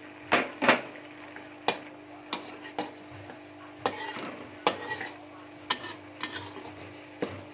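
Metal spatula scraping and clanking against a metal wok while stirring spice paste with lemongrass and ginger frying in oil, irregular sharp strokes over a low sizzle.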